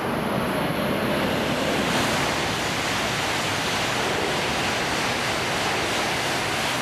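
Tohoku Shinkansen E5 series Hayabusa coupled with an E6 series Komachi passing through the station at speed without stopping: a steady rush of air and wheel noise as the train goes by.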